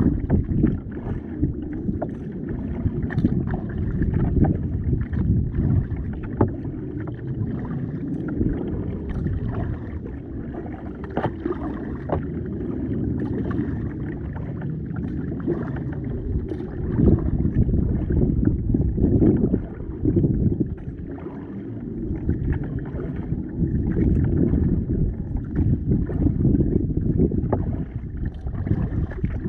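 Kayak being paddled: a continuous muffled rumble of water moving against the hull, with small splashes and knocks from the paddle strokes.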